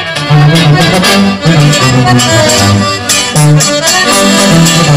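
Instrumental break of a norteño corrido: an accordion plays the melody over a bass line that moves note by note.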